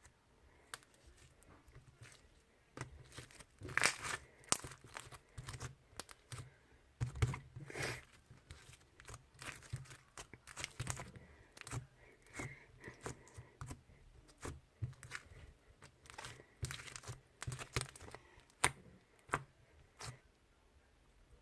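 Sticky blue slime being squeezed and pulled apart by hand, giving irregular sticky pops, crackles and tearing sounds that grow busier about three seconds in.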